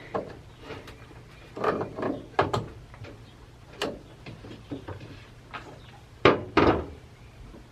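Scattered knocks and clacks of an old chainsaw's parts being handled and pried apart during teardown, with the loudest pair of knocks about six seconds in.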